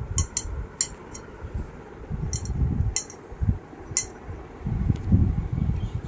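About seven light clinks and taps from a dish being handled, bunched in the first four seconds, over low bumping handling noise.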